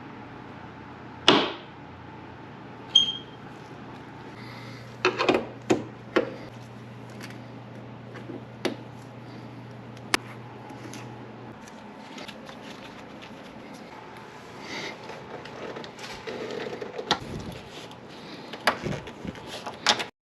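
Scattered clicks, knocks and clatter of hand work with tools and trim on a car's tailgate, a few sharp knocks standing out, with a low steady hum that stops about halfway through.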